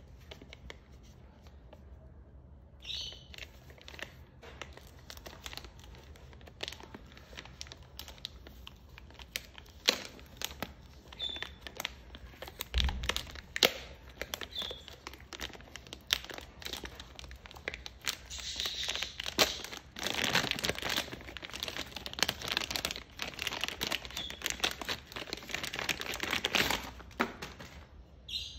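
Clear plastic bag crinkling and rustling as an audio interface is handled and unwrapped from it, with scattered sharp handling clicks. The crinkling is densest and loudest for several seconds in the second half.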